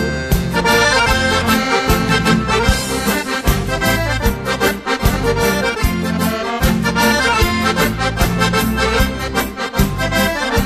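Piano accordion (gaita) playing an instrumental break in a southern Brazilian gaúcho song, over bass and drums keeping a steady beat.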